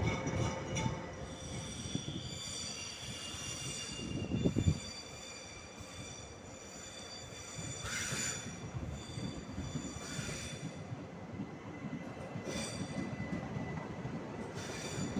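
ÖBB electric commuter trains rolling slowly through the station, their wheels squealing in several high steady tones over a low rumble of wheels on rail. There is a short low thump about four and a half seconds in.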